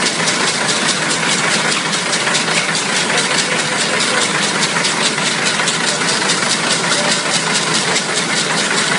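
48-carrier horizontal wire braiding machine running, braiding steel wire over a spiral hose: a steady mechanical clatter with a fast, even ticking rhythm.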